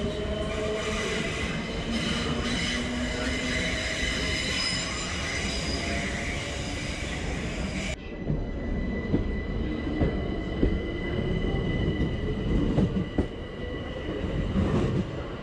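Southern Class 377 Electrostar electric train running along the platform: a high whine and wheel squeal over a steady rumble, then repeated knocks from the wheels over the rail joints as the carriages pass close by.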